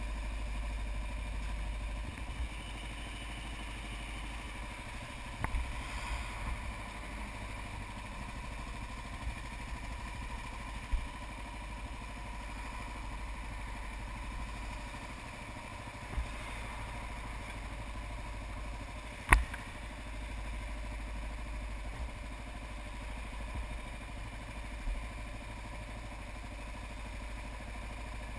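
Kawasaki KLR 650 single-cylinder engine idling steadily, with a few light clicks and one sharp click about two-thirds of the way through.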